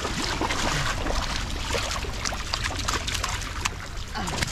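Shallow creek water splashing and trickling as a hand-caught gar is handled in it at the water's edge, with many small, quick splashes.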